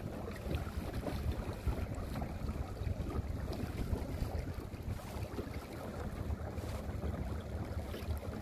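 Wind buffeting the microphone out on open water, with small waves lapping against the hull of a small boat.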